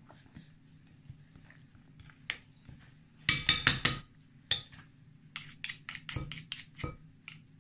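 Metal spoon clinking and scraping against a glass mixing bowl as thick cake batter is stirred. A quick cluster of loud clinks comes about three seconds in, then a run of rapid clicks over the last couple of seconds.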